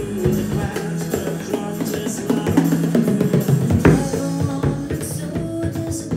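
Bodhrán beaten with a tipper in a steady rhythm, played along to a recorded pop song with singing and guitar.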